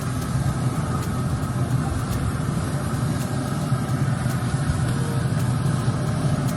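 Pellet smoker running at 400 degrees, its fan making a steady low hum.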